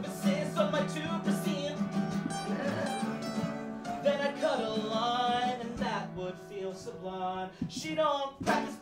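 Acoustic guitars strummed in a steady rhythm, with a man singing over them, the voice most prominent in the middle and near the end.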